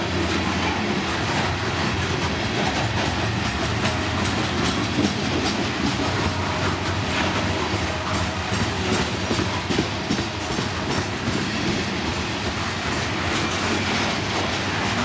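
Train cars rolling past, a steady rumble with repeated clacking of the wheels over the rail joints.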